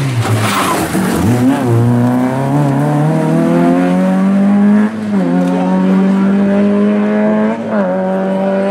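Peugeot 106 rally car's engine passing close, then accelerating hard away. Its pitch climbs and drops sharply at two upshifts, about five and seven and a half seconds in, then holds steady.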